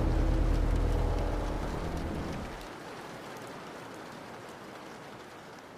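Steady rain falling, with a low hum underneath that stops about two and a half seconds in; the rain then carries on alone, fading down.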